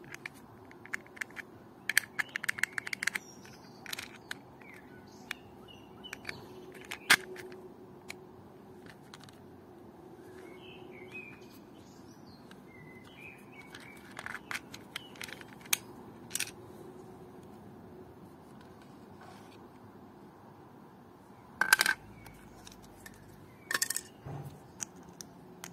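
Hard PLA plastic parts of a 3D-printed box, key, slider and coin clicking and scraping as they are worked by hand: sparse taps, a quick run of clicks about two seconds in, and louder clatters near the end. Faint bird chirps come in between.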